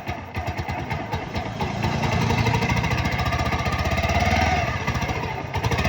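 Bajaj Pulsar 150's single-cylinder four-stroke engine running at idle, its revs and loudness dipping briefly and picking up again about two seconds in, with the timing chain newly replaced.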